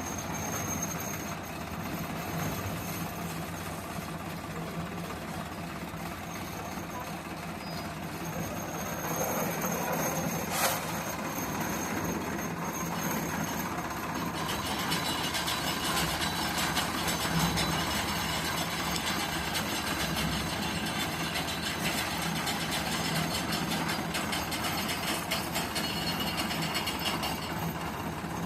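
Concrete mixer machine running: a steady mechanical rumble and rattle, with one sharp knock about ten seconds in and a brighter, busier clatter from about halfway through.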